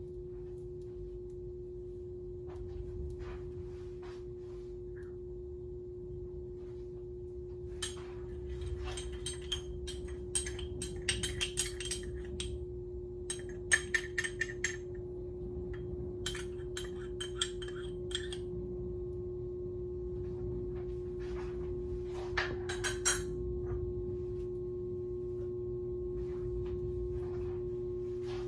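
A steady electrical hum at one pitch runs throughout, with scattered light clinks and ticks in clusters from about eight seconds in to about eighteen, and again briefly a few seconds later.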